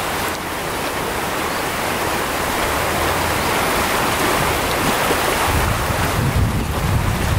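Creek riffle rushing over rocks, a steady wash of moving water. Near the end a low rumble of wind on the microphone joins it.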